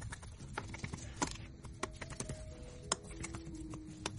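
Typing on a 2017 MacBook Pro's butterfly keyboard: quick, irregular key clicks with a few louder taps, over faint background music with held notes.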